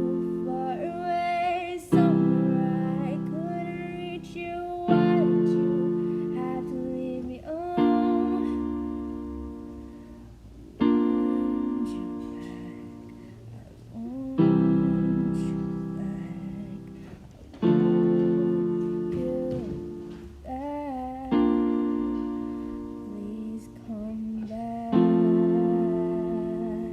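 Piano played in slow chords, one struck about every three seconds and left to ring and fade. A quiet, somewhat strained female voice sings a melody over them.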